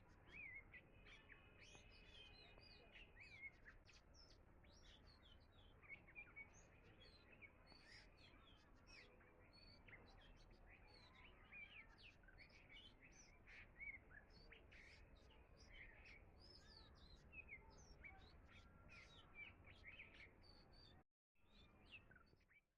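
Faint birdsong: many small birds chirping and trilling over a low steady background rumble. The sound drops out for a moment about 21 seconds in and stops at the end.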